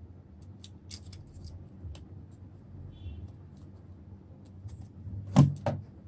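Light clicks and taps of objects being handled on a work surface over a low steady hum, with a sharp knock about five seconds in and a smaller one just after.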